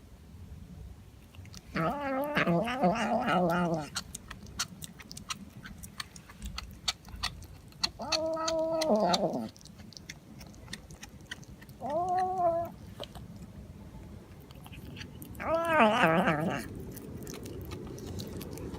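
A domestic cat giving four drawn-out, yowling meows. The first and last waver up and down in pitch. Faint small clicks come between the calls.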